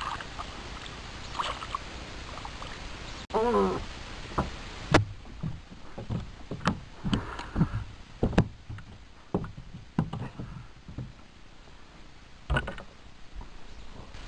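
Irregular knocks and thumps inside a small fishing boat, about a dozen over some six seconds and one more near the end, after a short wavering pitched sound.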